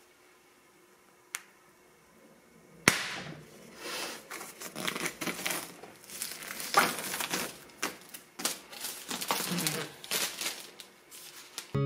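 Clear plastic wrap crinkling and crackling in irregular bursts as it is peeled off a new stretched canvas. The crinkling starts nearly three seconds in, after a single faint click.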